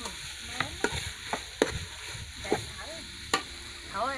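Metal ladle stirring pork and curry paste in an aluminium pot, clinking sharply against the pot several times over a steady frying sizzle.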